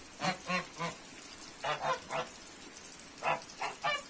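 Domestic geese honking: short, pitched honks in three quick runs of about three calls each, roughly a second and a half apart.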